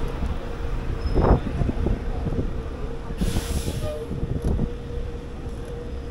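Wind buffeting an action camera's microphone over a low, uneven rumble from riding along a paved path. A faint steady hum runs underneath, and a brief hiss comes a little past three seconds in.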